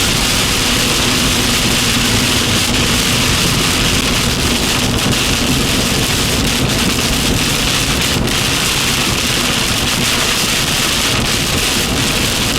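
Torrential rain pouring down heavily in a steady, dense hiss.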